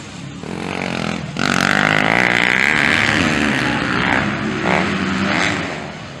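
Motocross bike engines revving hard as riders race past, pitch rising and falling with the throttle; it gets loud suddenly about a second and a half in.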